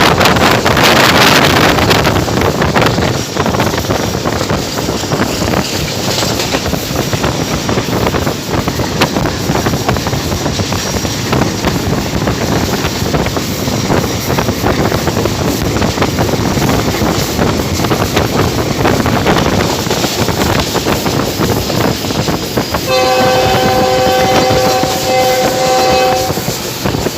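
Running noise of a train at speed with wind on the microphone; near the end a GEU-20 diesel locomotive's horn sounds for about three seconds, with a short break in the middle.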